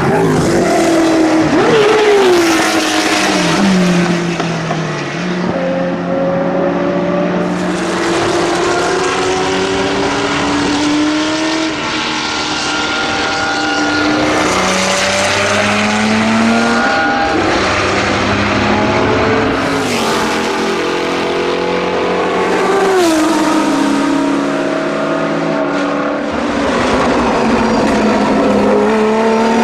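Porsche 917's air-cooled flat-12 racing engine at hard throttle on track, its pitch climbing through the revs and dropping back again and again as it shifts gears and lifts for corners.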